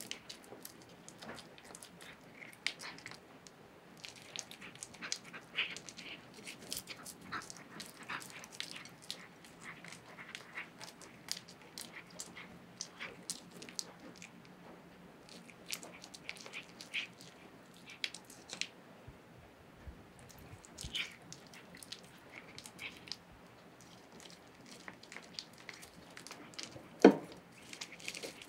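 A cat eating soft shredded meat from a plate, chewing with both sides of its mouth: small wet clicks and smacks that come and go. There is one sharp knock near the end, the loudest sound.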